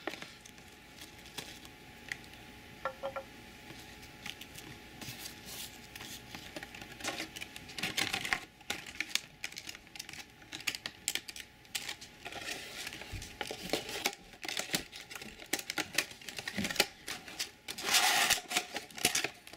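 Clear plastic packaging tray and foam wrap being handled and opened: irregular clicks and crackles, sparse at first and busier from about halfway through, with a louder rustle near the end.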